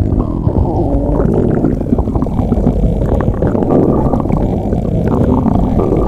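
Loud stomach growling: a continuous low, gurgling rumble with no break, the sound of a very hungry stomach.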